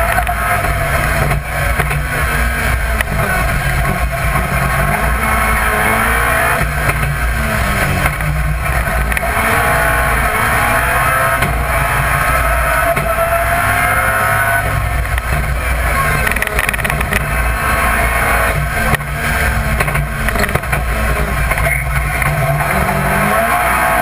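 BMW Compact rally car's engine driven hard at racing pace, heard from inside the cabin. The revs climb and drop again and again with gear changes and lifts off the throttle, over a steady low road and tyre rumble.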